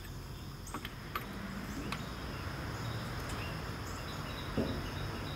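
Steady high-pitched insect chorus, with a few faint light clicks about one and two seconds in.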